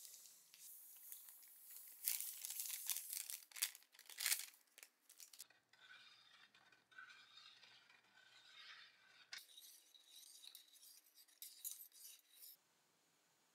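Plastic bag crinkling as potassium nitrate for a hot bluing bath is poured into water in an enamel pot, with faint clicks of the salt. Then a wire whisk stirs and clinks in the salt water. The sound cuts off suddenly near the end.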